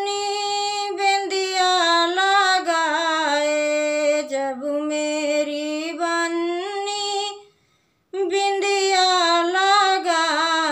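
A woman singing a Hindi banna-banni wedding folk song solo and unaccompanied, in long held, wavering notes. She pauses briefly for breath about seven and a half seconds in, then sings on.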